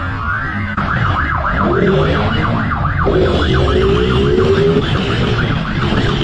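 A siren warbling rapidly up and down, about four to five sweeps a second, over a motorcycle engine under hard acceleration. The siren fades about halfway through as the engine note climbs in pitch.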